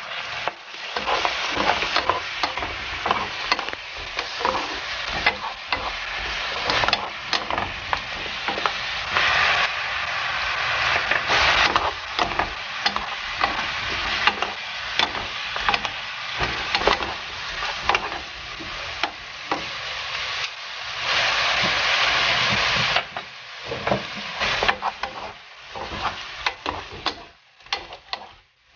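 Chicken pieces sizzling in a frying pan over medium heat while a wooden spoon stirs them, with frequent scrapes and knocks of the spoon against the pan. The sizzle is loudest about three quarters of the way through, and near the end it thins to separate knocks.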